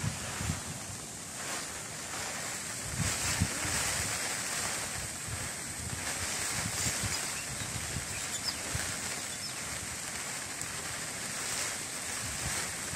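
Wind gusting over the microphone, irregular low buffeting over a steady outdoor hiss.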